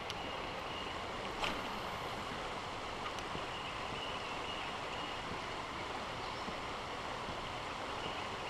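Steady rushing of flowing creek water, with a couple of faint clicks about one and a half and three seconds in.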